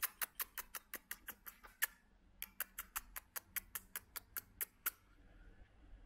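Two runs of sharp, rapid clicks, about six a second, with a short break about two seconds in; the clicking stops about five seconds in.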